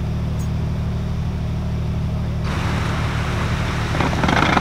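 Steady low rumble of wind buffeting the microphone, joined about halfway by a sudden rushing hiss that grows louder near the end.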